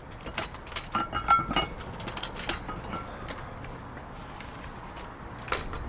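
Small glass lemonade bottles clinking and knocking together as they are handled. There is a quick run of clinks in the first three seconds, then one more near the end.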